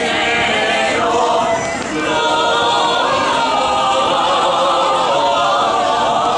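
Small mixed group of men and women singing a cappella in close harmony.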